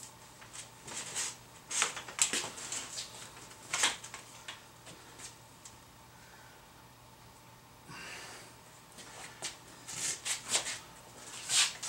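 Handling noise as spring clamps are moved and refastened on a welding blanket hung from a PVC frame: scattered light clicks and rustles, busiest in the first few seconds and near the end.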